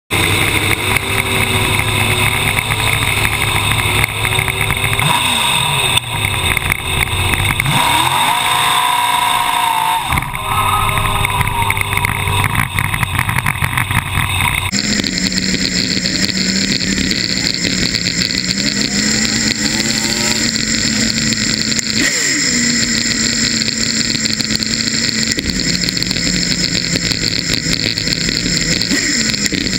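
Dragster's engine running at idle, close to the microphone, with a few rises and falls in engine speed in the first half. About halfway the sound changes abruptly into a sped-up stretch where the idle holds mostly steady.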